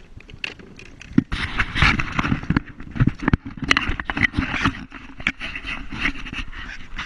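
Irregular splashing, scraping and sharp knocks as a pike is handled in the water beside a kayak and lifted out, starting about a second in.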